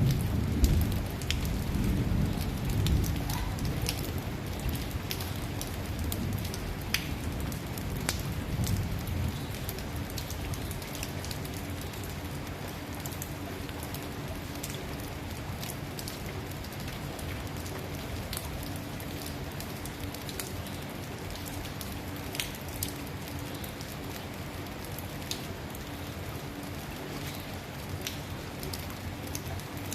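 Steady rain falling on a road, with many sharp drop ticks scattered through it. A low rumble underneath during the first several seconds fades away, leaving the even patter.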